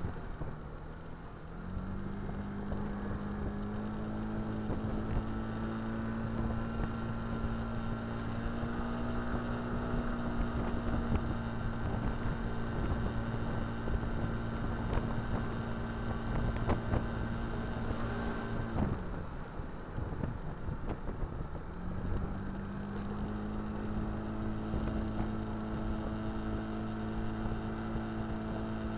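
Kymco Dink Street scooter's single-cylinder four-stroke engine running under way. Its steady note steps up just after a second in and holds, drops off abruptly about two-thirds through as the throttle is closed, then climbs and settles again, with road and wind noise beneath.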